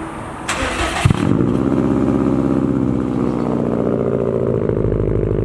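2015 Subaru STI's turbocharged flat-four engine starting through a newly fitted Tomei ExtremeTi titanium single-exit exhaust: the starter cranks for about half a second, the engine catches with a loud flare just after a second in, then settles into a steady idle.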